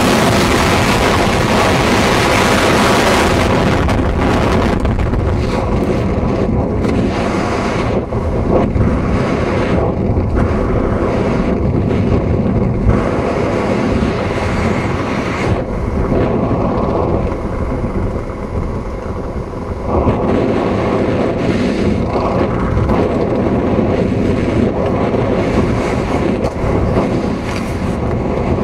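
Wind rushing over a skydiver's helmet-camera microphone: a loud, hissing roar in freefall that turns duller about three to four seconds in as the parachute opens, then a steady, uneven buffeting of wind through the canopy flight.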